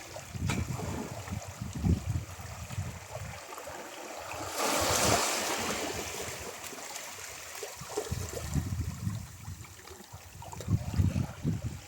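Ocean waves washing onto a shore: one wave breaks about four and a half seconds in with a swell of hiss that slowly fades. Low gusts of wind buffet the microphone at the start and again near the end.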